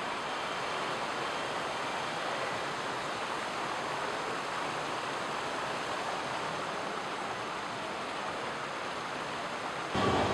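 Steady, even wash of shopping-mall ambience with no single clear voice or event. Near the end it jumps louder as a lower rumble and a few voices come in.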